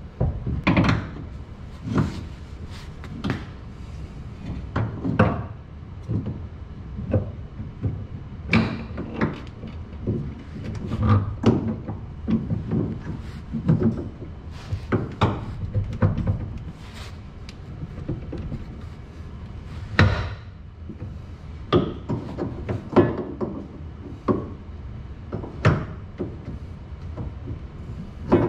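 Irregular metallic knocks, clunks and scrapes, roughly one a second, of a replacement drive axle being worked into place by hand under the car.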